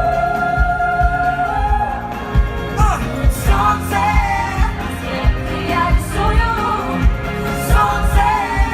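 Pop song played by a band, with a long held sung note and then melodic vocal phrases over a steady drum beat.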